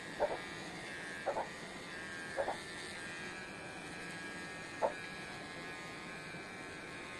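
Small cordless pet clipper buzzing steadily as it trims the fur on a puppy's paw, with four brief louder blips as the blade works through the fur.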